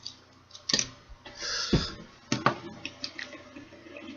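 Plastic clicks and taps from a Transformers Voyager Dreadwing action figure being handled and posed with its plastic sword, with a short rustle and a dull knock near the middle.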